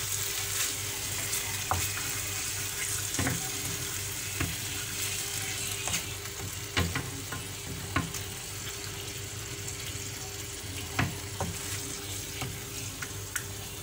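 Chicken pieces in a splash of freshly added water sizzling in a frying pan as a wooden spatula stirs them: a steady hiss with a few sharp knocks of the spatula against the pan.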